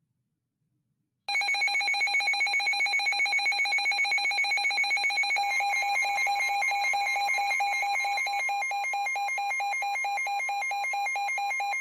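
A weather radio receiver's electronic alert alarm starting about a second in: a loud, rapidly pulsing, multi-pitched beeping that signals a new warning is being issued. About halfway through, a steady tone of about 1 kHz, typical of the NOAA Weather Radio 1050 Hz warning alarm tone, joins underneath.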